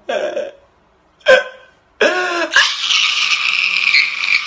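A man crying and wailing: short sobbing cries, then a long high-pitched wail from about two and a half seconds in that cuts off suddenly at the end.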